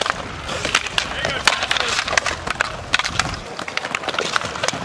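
Roller hockey sticks clacking against each other and the puck in quick, irregular sharp knocks, over the rolling of inline skate wheels on the rink floor.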